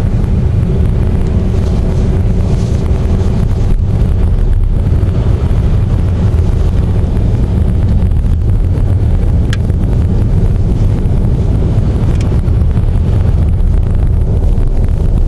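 Steady low rumble of a vehicle driving, heard from inside the cabin: engine and tyre noise with a faint hum, and a single short tick about nine seconds in.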